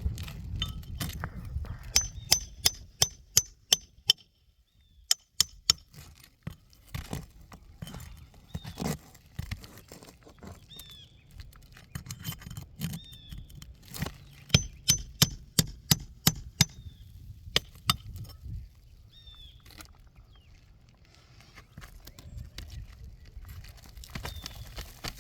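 Hammer striking during a roof shingle repair: sharp ringing blows in quick runs of about four a second, two main runs with scattered single knocks between them.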